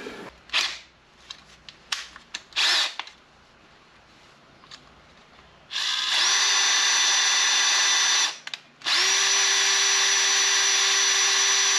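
Power drill spinning a wire wheel brush to scrub old Loctite thread locker off wheel bolts. After a few light clicks of handling, the drill runs at a steady pitch for two runs of about three seconds each, with a brief stop between them.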